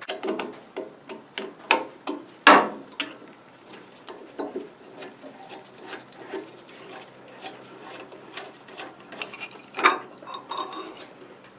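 Clinks and knocks of metal tools and parts as a Ford Model A carburetor is taken apart by hand, with a rag rubbing in between. The sharpest knocks come about two and a half seconds in and again near the end.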